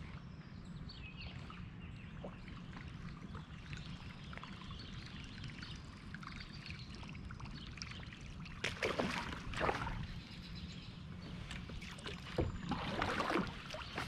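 A kayak paddle dipping and splashing in creek water over a low steady background. Two louder pairs of splashy strokes come about two-thirds of the way through and again near the end.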